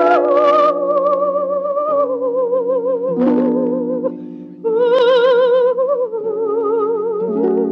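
Coloratura soprano singing long, slow notes with a wide vibrato over sustained piano chords. The voice fades on a held note, then re-enters louder on a new phrase about halfway through.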